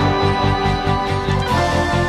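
Background music with a steady beat, changing chord about one and a half seconds in.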